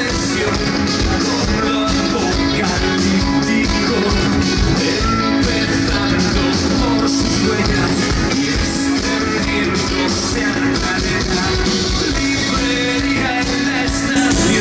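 Rock band playing live through a festival sound system: a steady drum beat under electric guitars, with some singing.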